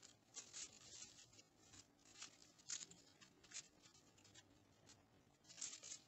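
Faint, irregular rustling and scraping of an artificial rose spray's stems and fabric leaves as fingers work the flowers up along the stems.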